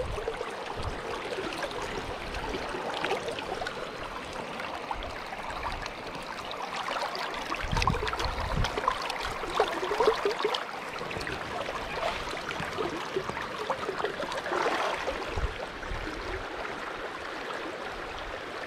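River current flowing, a steady rush of water, with a few brief low bumps near the middle.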